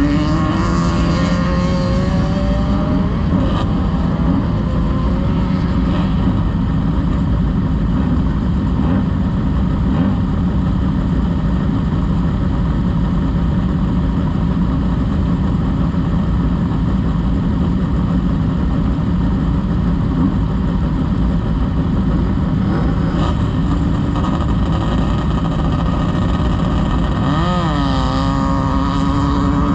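Off-road race vehicle's engine running hard under loud steady noise, its pitch rising and falling with the revs near the start and again in the last few seconds.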